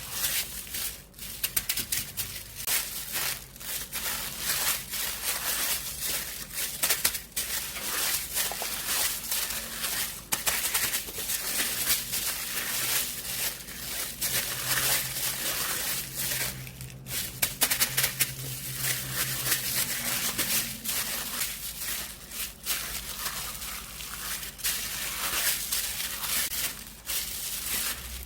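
Water-vinyl slime being squeezed and pressed by hand: its thin plastic-like skin crinkles and crackles in dense, rapid pops.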